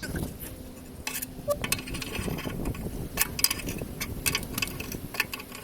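Scattered metallic clinks and taps of hand tools working at a rust-seized exhaust nut and bolt.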